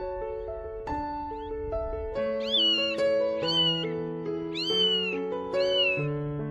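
A cat meowing four times, high-pitched calls that rise and then fall, about a second apart, starting about two seconds in, over steady piano background music.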